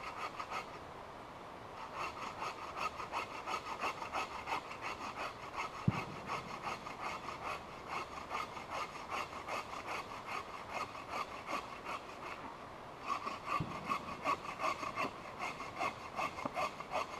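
Hand saw cutting firewood in steady back-and-forth strokes, about two to three a second, pausing briefly near the end before starting again. A dull knock comes about six seconds in.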